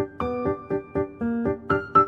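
Background music on a piano-like keyboard: a steady run of struck notes, about four a second.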